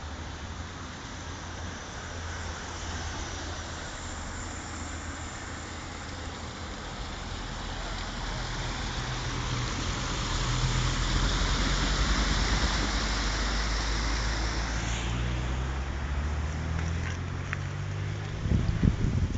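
A car driving through floodwater: a steady engine hum under a wash of water and wet-tyre hiss that grows louder, is loudest about two-thirds of the way through, then falls off.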